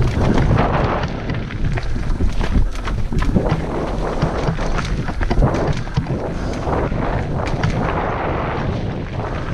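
Mountain bike riding down a rough dirt trail: steady wind rumble on the camera's microphone, tyres rolling and skidding on dirt, and frequent knocks and rattles from the bike over roots and bumps.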